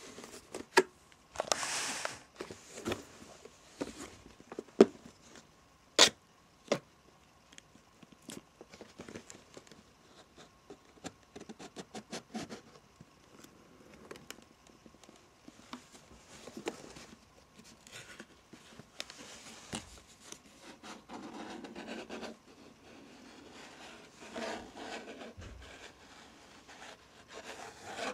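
Close-miked fingernail tapping and scratching with rustling of cardboard and paper packaging. Several sharp, loud taps stand out in the first seven seconds, and stretches of scratchy rustling follow later.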